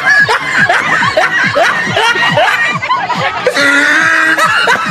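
A group of women laughing and shrieking over background music, in short falling-pitch bursts one after another.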